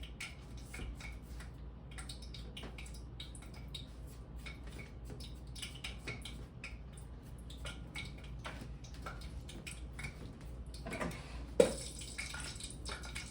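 Small irregular clicks and taps of kitchen handling, with one sharp knock about eleven and a half seconds in, over a steady low hum.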